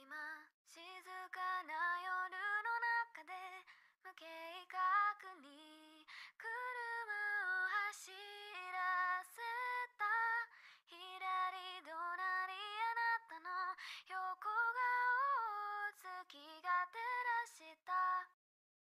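A high female voice singing a slow, lullaby-like melody alone, without instruments, in phrases separated by short breaks. The singing stops shortly before the end.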